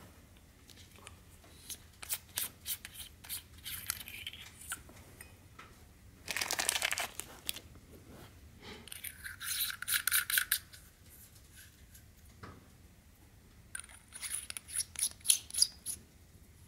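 Metal parts of a Sofirn SP40 flashlight handled and screwed together by hand while its 18650 battery tube is swapped for the short 18350 tube: short clicks and rasps of the threads and parts knocking together, with a longer scraping rasp about six seconds in and quick clicking runs around ten seconds and near the end.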